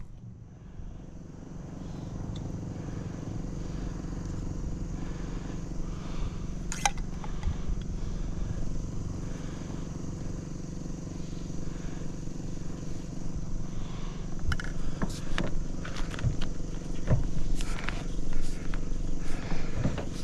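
An engine running steadily at a low, even pitch, with scattered clicks and knocks in the second half.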